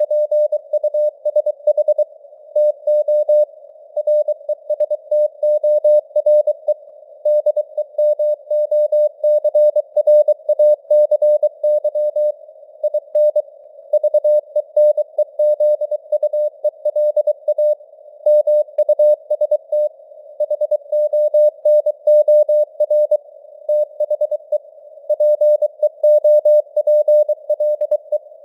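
Morse code (CW) at 23 words per minute: a single tone of about 600 Hz keyed on and off in rapid dots and dashes. It sits over a narrow hiss of simulated radio noise, with the signal strength varying (QSB).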